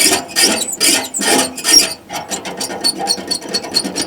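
Foley squeak prop rubbed in repeated rasping strokes against metal, imitating an old squeaking wheel such as a stretcher's. The strokes speed up about halfway and carry short high squeaks.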